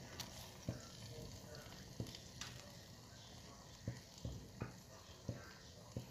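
Faint, scattered light clicks and crackles over a low hiss as fried pomfret are settled on banana leaves in a clay pot.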